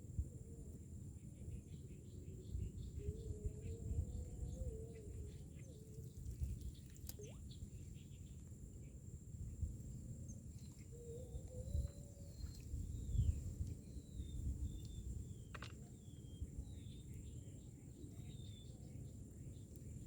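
Faint outdoor ambience: a low rumble of wind on the microphone, with scattered short bird chirps and a steady high whine.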